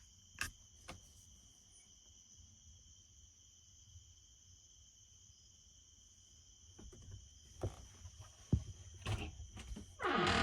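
Insects chirring steadily in two even, high tones. A couple of sharp clicks come in the first second, and a run of knocks and thumps in the last three seconds.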